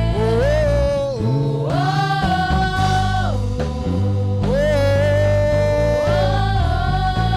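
Church worship music: a band plays a held, gliding melody line over a steady bass and chordal accompaniment.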